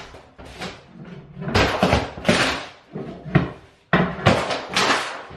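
Old plywood floor underlayment being pried up with a long pry bar: a run of wooden cracks, scrapes and knocks as the sheet tears loose from the boards beneath.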